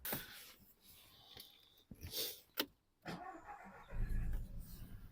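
Key clicks in the ignition, then the 2009 VW Golf's 1.4 petrol engine cranks about three seconds in and catches about a second later, running on with a low rumble. The engine has a misfire that still shakes the car.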